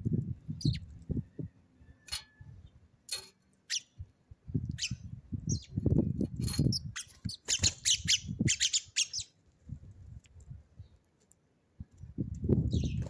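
Sparrows chirping in short, scattered calls, with a quick cluster of chirps about eight seconds in. Irregular low bumps and rustles come and go underneath.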